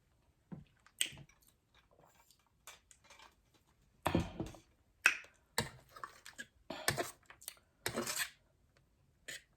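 Close-miked eating: irregular wet mouth clicks and smacks, with several louder crunchy bites of fried food in the second half.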